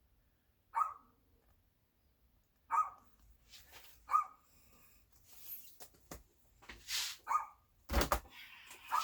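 A dog barking in short single barks, about four times, spaced a second or two apart. There are a couple of brief noisy sounds between the later barks.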